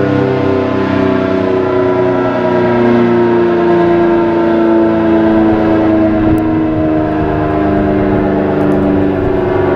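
ACA Allertor 125 electromechanical outdoor warning siren sounding during its monthly test, very loud. It holds a steady, rich tone whose pitch drifts slowly downward.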